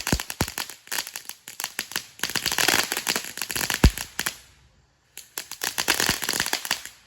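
'Pistol Pete' consumer firework going off in rapid crackling pops with several louder bangs, like Western-movie gunfire. It pauses for about half a second just past the middle, resumes, then stops suddenly.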